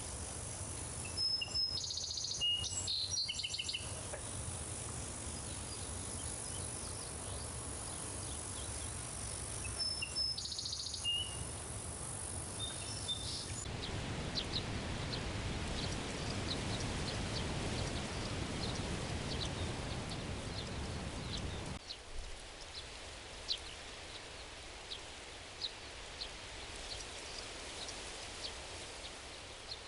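Daytime outdoor ambience of birds and insects. There are two short bursts of bird calls, near the start and about ten seconds in, over a steady high insect drone that stops partway. After that come quick, repeated short chirps, and a low background rumble that falls away about two-thirds of the way through.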